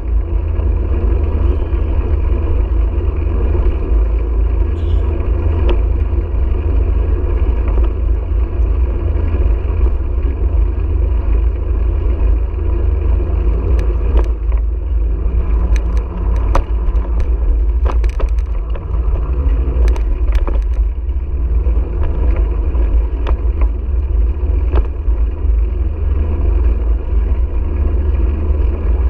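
Wind buffeting the microphone of a GoPro on a moving bicycle: a steady deep rumble. From about halfway through, scattered clicks and knocks cut in.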